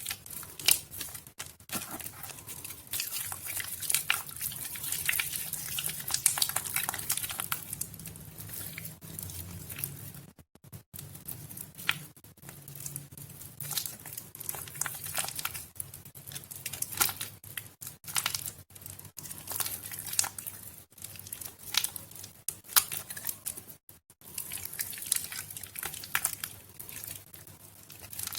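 Soaked pink and white Nuvo bar soap being worked by hand, giving a dense, continuous crackling with two brief pauses.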